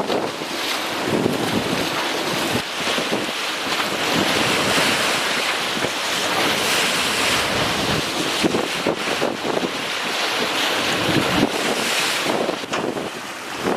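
Gusty wind buffeting the microphone, over a steady rush of choppy water.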